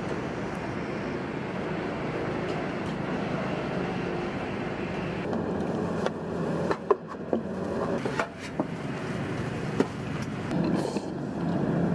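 Steady low rumbling noise with a few sharp clicks and knocks about halfway through.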